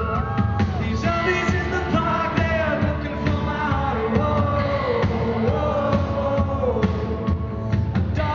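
Male singer performing a song live with a full band, his sung melody held over guitars and drums.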